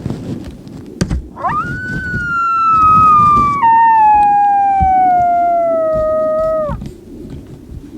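A long single coyote howl. It swoops up sharply about a second and a half in, holds while slowly sagging, breaks down to a lower pitch about halfway through, and slides lower still before cutting off near the end.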